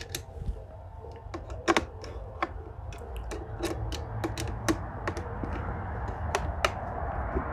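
Irregular small clicks and ticks of a hex key and fingers working the screws and metal scope rings of an air-rifle scope mount, a few sharper clicks among them.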